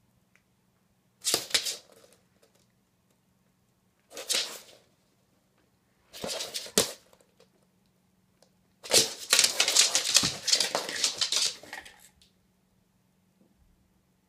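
A springer spaniel 'talking': four raspy, grumbling vocal bursts, three short ones and a longer run of about three seconds near the end.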